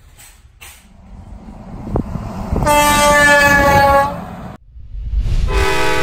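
Musket electric air horn sounding one loud blast of about a second and a half, a chord of several steady horn tones, after a low rumble builds up. After a brief break, a second, lower-pitched train-horn chord begins near the end and holds.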